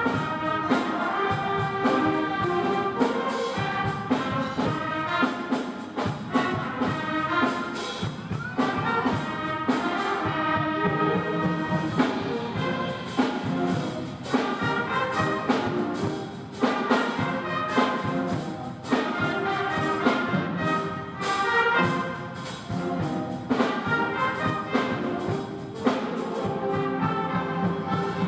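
Middle-school concert band playing, with brass to the fore (trumpets and trombones) over frequent percussion strikes.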